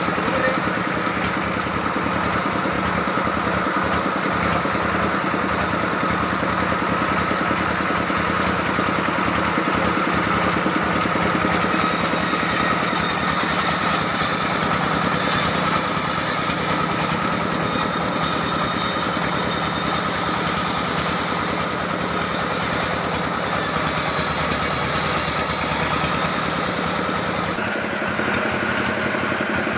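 Sawmill engine running steadily. A hiss joins in from about twelve seconds in and drops away again near twenty-six seconds.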